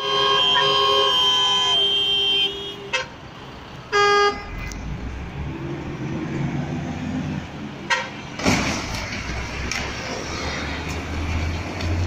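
A vehicle horn sounds a long blast of about two and a half seconds, then a short toot and a second loud blast about four seconds in, with another brief toot near eight seconds. After that, the engine and tyre noise of passing highway traffic swells as the buses go by.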